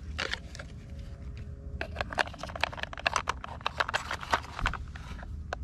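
Hard plastic clicking and rattling as toy wheels are pushed onto a toy excavator's metal axles and the toy is handled: a few clicks at first, then a quick irregular run of clicks from about two seconds in.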